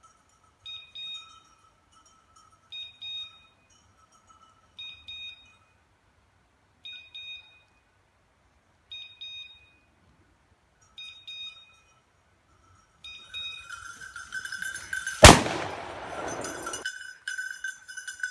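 Beeper collar on a pointing dog sounding a short two-tone electronic beep about every two seconds, the beeps coming faster and closer together near the end. About fifteen seconds in a single loud shotgun shot rings out.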